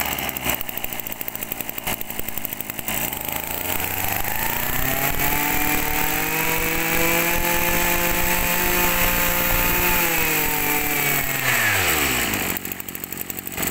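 Maruyama BIG M 23 cc two-stroke brush-cutter engine, freshly started, idling, then revved up about four seconds in and held at high speed for several seconds. It drops back to idle near the end.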